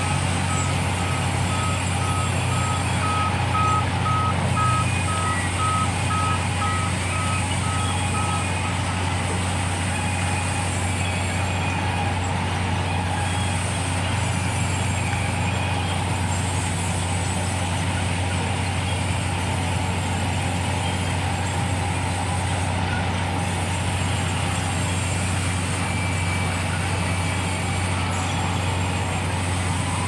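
Sawmill band saw running steadily with a low hum while timber is fed through the blade. A high electronic beep repeats about one and a half times a second for the first eight seconds or so.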